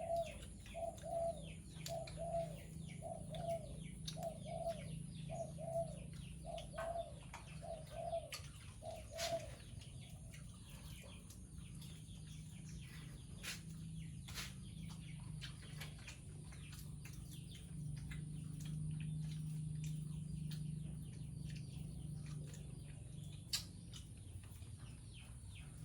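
A bird calling in a quick run of short, evenly repeated notes that stops about ten seconds in, over scattered sharp clicks and a steady low hum.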